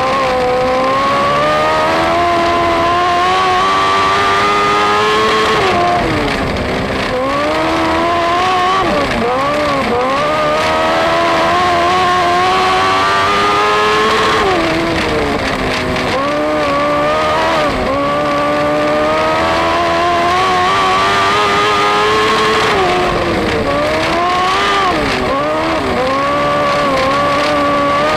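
Dwarf race car's engine heard from on board under racing load, climbing in pitch as it accelerates and dropping sharply as the driver lifts, several times over.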